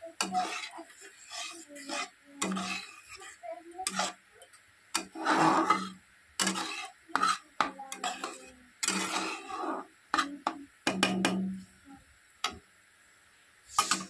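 Spatula stirring wet chana dal in a metal kadai: irregular scraping strokes about once a second, with a few sharp clinks against the pan.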